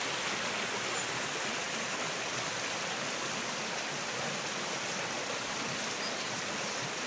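Steady rushing of running water, an even hiss that keeps the same level throughout.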